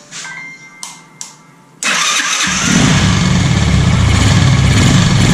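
Single-cylinder motorcycle engine started on its electric starter: the starter kicks in suddenly about two seconds in, the engine catches within about half a second and then runs loudly and steadily. It is the hard starting sound that the owner traces to a slipping starter Bendix (starter drive).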